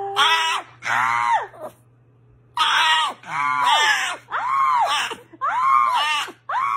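Small dog howling in a string of short yowls, each rising and falling in pitch, with a brief pause about two seconds in.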